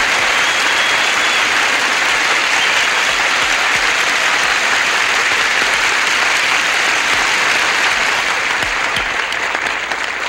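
Studio audience applauding, steady and full, starting to die down near the end.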